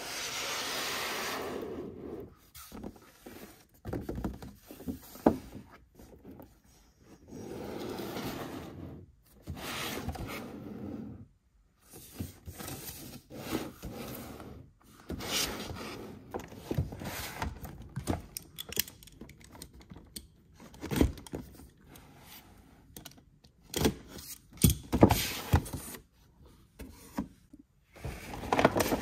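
Hands handling cardboard toy boxes: long rubbing and sliding scrapes of cardboard, broken by sharp taps and knocks against the packaging.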